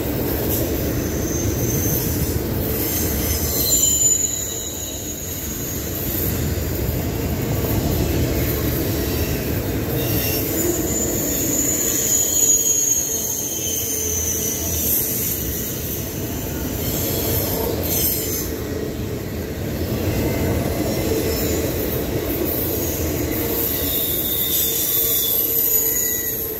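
Double-stack intermodal container train rolling past: a steady rumble of wheels on the rails, with thin, high wheel squeals that come and go, one drawn out and slowly falling in pitch midway through.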